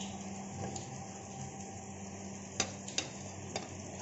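Steel slotted spoon scooping thick halwa out of a metal kadhai onto a ceramic plate, scraping and knocking against the pan and plate, with three sharp clinks in the second half over a steady low hum.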